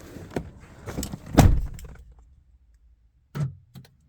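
Car door of a 2007 Mazda RX-8 shutting with one heavy thud about one and a half seconds in, after some light handling clicks. Two short clicks follow near the end.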